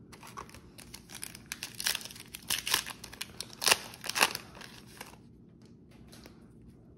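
A Yu-Gi-Oh booster pack's foil wrapper being torn open and crinkled by hand: a quick run of sharp crackles for about five seconds, loudest near the middle.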